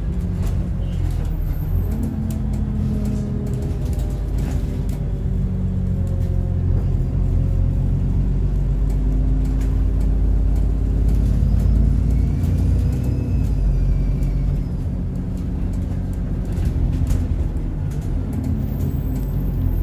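Alexander Dennis Enviro 400 double-decker bus with a Voith automatic gearbox heard from inside while under way: the diesel engine runs with a steady low rumble and rises and falls in pitch, with scattered rattles. About two-thirds of the way through, a high turbocharger whistle rises and then falls.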